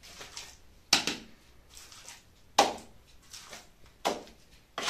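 Small steel trowel scooping wet fibred earth-lime plaster from a bucket and slapping it onto a wooden float: about four sharp scraping strokes, roughly a second or so apart, with softer scuffs between.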